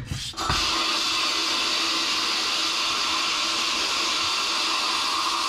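Abrasive media blasting in a blast cabinet: a steady hiss of compressed air and grit hitting a cast iron brake caliper, over a steady hum. It starts abruptly about half a second in.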